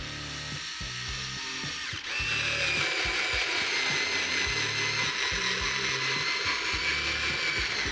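Xiaomi Mi Cordless Screwdriver (3.6 V) driving a large, roughly 5 cm torx-head wood screw into wood with no pilot hole. The motor runs throughout and gets louder about two seconds in, with a whine that slowly falls in pitch as the tool labours: the big screw gives it more trouble.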